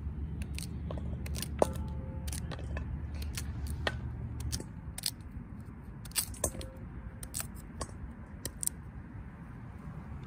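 Irregular sharp clicks and light metallic clinks, a couple of them with a brief ring, over a low steady rumble that drops away about halfway through.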